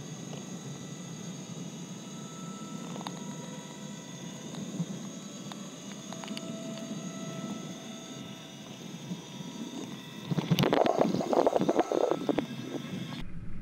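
Open cable lift carrying a basket up a rock shaft, its drive giving a steady whine made of several tones over a low rumble, with a few faint clicks. About ten seconds in, a louder, uneven rushing noise comes in, and the sound cuts off abruptly near the end.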